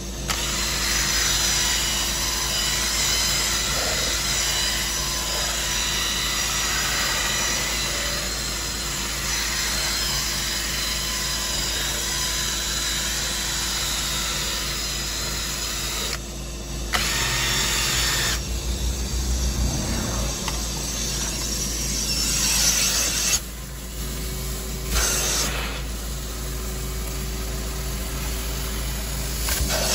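Cordless drill spinning a drill brush scrubbing cloth car-seat upholstery. It runs steadily and stops briefly a couple of times, about sixteen and twenty-three seconds in, before starting again. A steady motor hum sits underneath.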